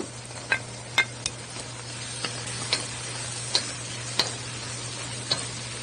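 Shrimp and vegetables sizzling in curry in a pot while a slotted spatula stirs them, giving sharp, irregular scrapes and taps against the pot over a steady low hum.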